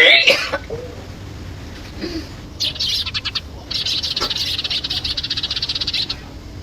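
A short vocal burst at the very start, then an animal's rapid, high-pitched pulsing trill in two stretches, about one second and two seconds long.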